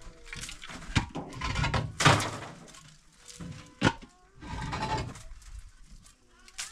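Three sharp knocks or thuds, the loudest about two seconds in, the last a little before the four-second mark.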